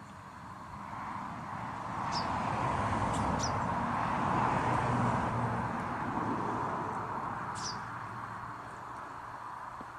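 A broad rushing noise swells to a peak about halfway through and then fades. Over it come a few short, high chirps from a feeding flock of chaffinches.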